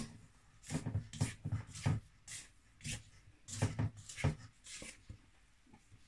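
Spatula stirring and scraping crumbly shortcrust tart dough in a stainless steel mixing bowl: a run of short scrapes and knocks, about two a second, dying away near the end.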